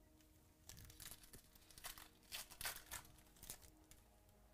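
Foil trading-card pack wrapper crinkling and tearing as it is opened by hand: a run of quiet crackles lasting about three seconds.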